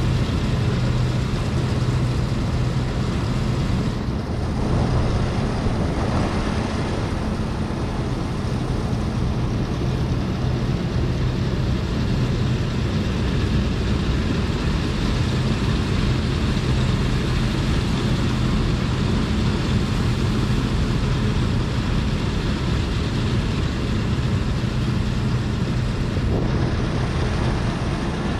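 Claas Lexion 430 combine harvester running steadily: a continuous engine drone with a low hum.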